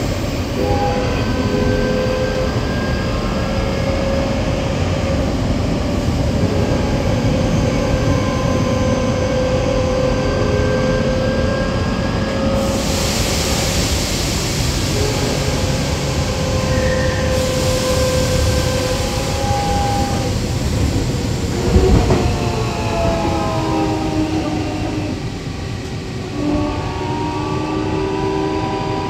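Tokyo Metro 8000-series subway train running between stations, heard from aboard: a steady rumble of wheels on rail under several steady motor whines. A stretch of louder hiss rises about halfway through, and a sharp knock comes about 22 seconds in, followed by shifting whine tones.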